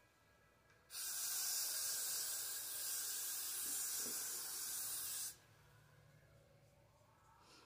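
Aerosol can of Got2b Glued freeze hairspray spraying in one long, steady hiss that starts about a second in and stops suddenly about five seconds in.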